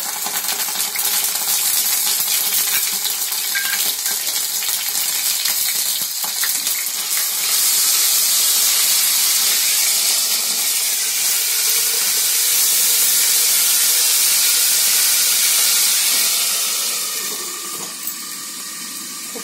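Ginger-garlic paste sizzling and spattering loudly in hot oil in a non-stick frying pan, kept covered with a glass lid partway through. The sizzle grows louder about eight seconds in and dies down near the end.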